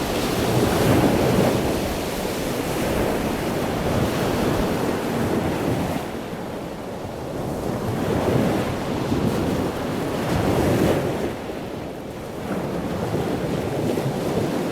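Ocean waves breaking and washing in, a continuous rush of surf that swells and eases every few seconds.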